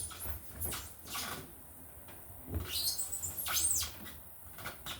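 Electrical wires rustling and scraping as they are pulled through a hole in a boat's bow, with scattered scratches and light knocks from hands at work.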